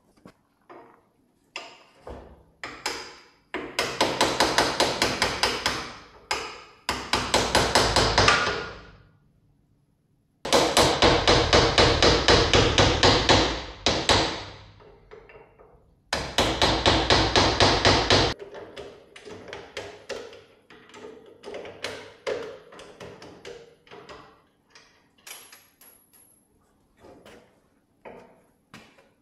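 Hammer blows during vehicle dismantling, coming in four fast runs of a few seconds each, several strikes a second, with scattered lighter knocks and taps between.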